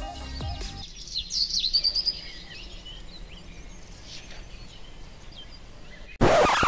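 Birds chirping in short twittering calls over quiet room tone, clearest in the first couple of seconds. Near the end, loud music cuts in abruptly.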